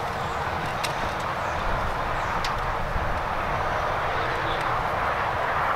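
A steady rushing background noise, with a few faint clicks from a hand screwdriver driving a wood screw into a pine cage leg.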